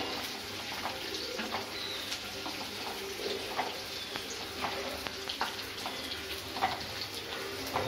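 Sliced onions frying in hot oil in a non-stick kadai with a steady sizzle. Irregular light clicks and scrapes come from the wooden spatula stirring them.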